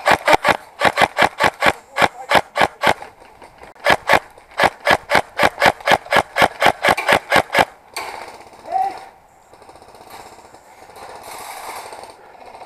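WE Katana M4 airsoft electric rifle firing rapid single shots, about four or five a second, in two strings with a short pause about three seconds in. The shooting stops about eight seconds in.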